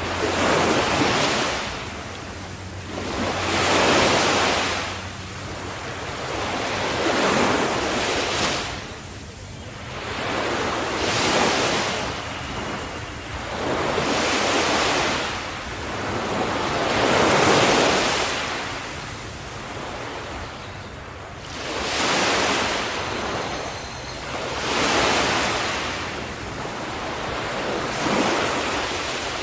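Ocean waves breaking on the shore: a wash of surf that swells and fades about every three to four seconds.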